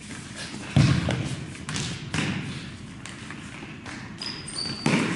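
Futsal ball being kicked on a gym floor, with a hard thump about a second in and softer thumps near two seconds and just before the end, each dying away in the hall's echo. Short high sneaker squeaks come from the players' shoes on the floor around four seconds in.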